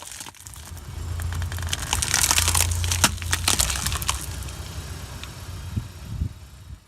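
A car's tyre rolling over and crushing brittle objects: a dense run of cracking and crackling, loudest from about two to three and a half seconds in, over the low running of the car's engine.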